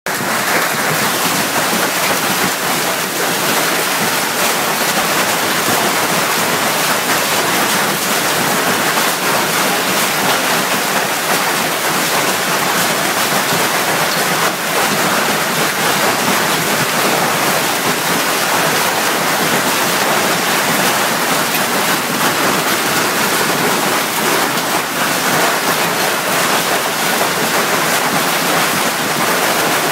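Heavy hail pelting a swimming pool and patio: a steady, dense roar of countless hailstones splashing into the water and clattering on hard surfaces.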